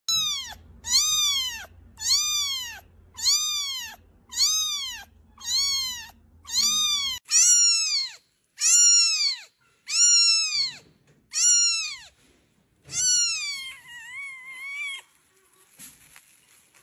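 Very young kittens mewing over and over, a high-pitched cry about once a second, each rising and falling in pitch. About seven seconds in, a second newborn kitten takes over, and near the end its cries turn weaker and wavering.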